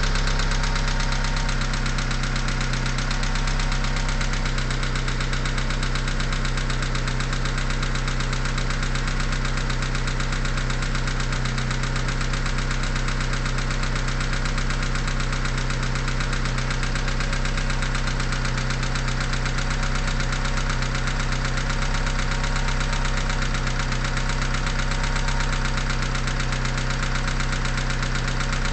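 Mitsubishi 4G63T turbocharged 2.0-litre four-cylinder idling steadily from a cold start with a steady knock, a noise that goes away once the engine is warm. The owner is unsure whether it is lifter noise or piston slap.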